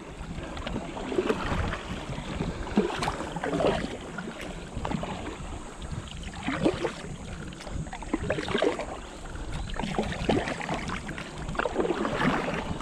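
Kayak paddles dipping into calm water and splashing, about one stroke every one to two seconds, over a low wind rumble on the microphone.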